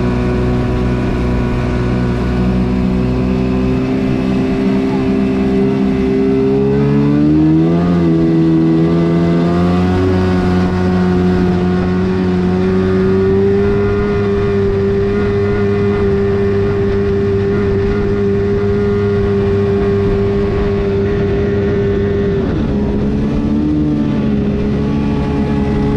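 Kawasaki 750 two-stroke jet-ski engine driving a jet jon boat, running hard at speed. Its pitch climbs about six to eight seconds in, holds steady, then dips and settles a little lower near the end.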